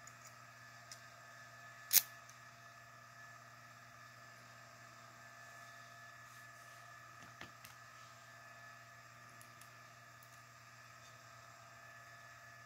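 Faint steady hum with a few small clicks and one sharp click about two seconds in, from handling a Euro cylinder lock and its key.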